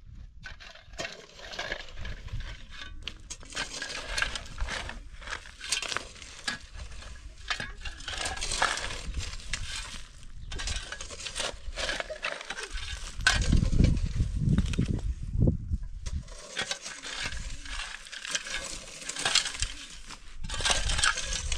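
Metal shovels scraping and digging into dry, stony soil and tossing the dirt, in repeated irregular gritty strokes. It gets louder and heavier for a couple of seconds just past the middle.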